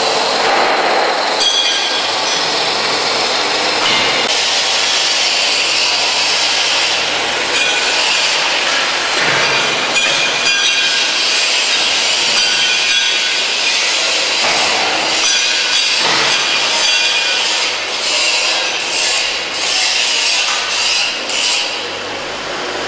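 Angle grinder cutting into steel: a loud, continuous high grinding screech that wavers and dips somewhat near the end.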